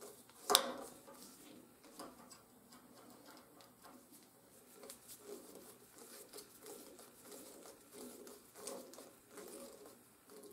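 Copper wire being twisted around a stainless steel TIG rod with pliers while the rod is held in a bench vise: faint scraping and small metal clicks, with one sharp click about half a second in.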